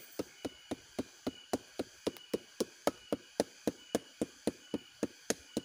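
Wooden beater knocking steadily on a sugar palm (aren) flower stalk, about four blows a second, pounding it to soften the stalk before it is tapped for sap.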